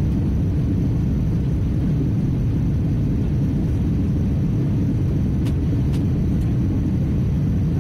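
Steady low rumble of cabin noise inside an Airbus A319 airliner on approach: jet engines and airflow heard from a passenger seat. A couple of faint clicks come between five and six and a half seconds in.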